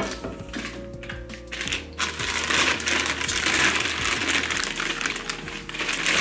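Background music with the handling of packaging: a few light knocks, then loud crinkling and rustling from about two seconds in.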